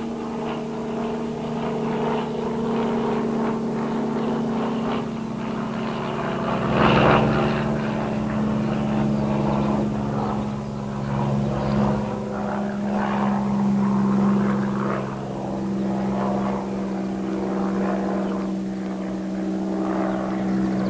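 Propeller aircraft flying past, its engine droning steadily and swelling briefly about seven seconds in.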